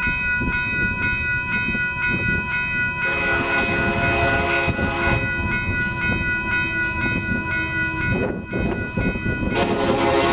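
Horn of an approaching Union Pacific GE Evolution-series diesel locomotive leading a double-stack freight. One blast starts about three seconds in and fades over a few seconds, and a second starts near the end. Under it runs a steady high ringing with regular light strikes and the rumble of the train.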